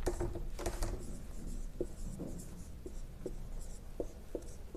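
Felt-tip marker writing on a whiteboard: a string of short squeaking strokes with faint scratching between them.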